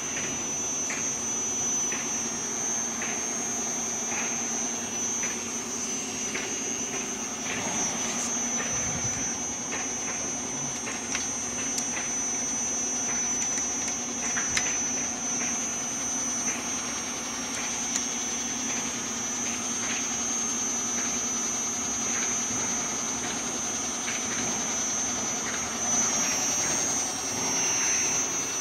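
Paldo PTD-32 drill-tapping machine running on its inverter-driven 2 hp motor, giving a steady high-pitched whine over a lower hum. Light ticks come and go irregularly throughout.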